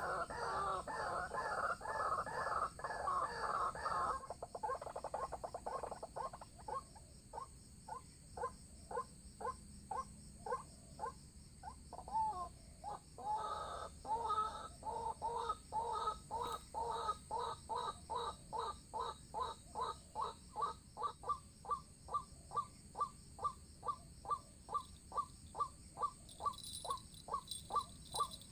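White-breasted waterhens calling. The calls start as a dense, overlapping run of loud croaks for about four seconds, then settle into a long, regular series of repeated croaking notes that quickens to about two or three a second.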